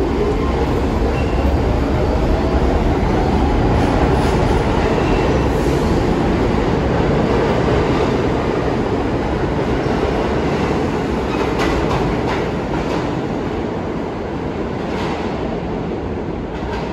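New York City subway train running through the station, with wheels clacking over rail joints now and then. The noise eases off over the last few seconds.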